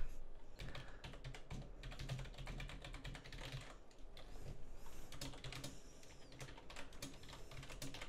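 Fast touch-typing on a Speedlink Ferus membrane keyboard: a dense, steady patter of keystroke clicks, with a short lull about halfway through.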